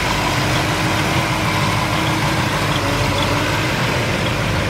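A 454 big-block V8 idling steadily through dual exhaust with Cherry Bomb mufflers.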